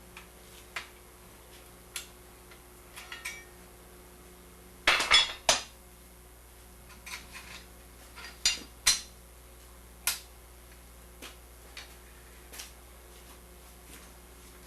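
Steel vine rods being bent around an iron baluster with a large scrolling wrench: irregular metal clinks and knocks of steel on steel. The loudest cluster comes about five seconds in.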